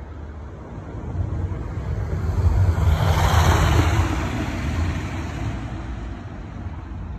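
A car driving past, its tyre and engine noise with a low rumble growing louder to a peak a few seconds in, then fading away.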